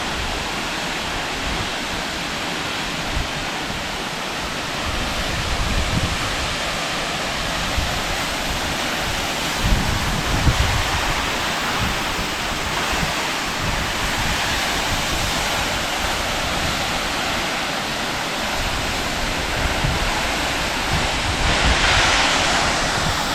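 Tall waterfall falling and splashing in a steady, dense rush, with gusts of wind buffeting the microphone.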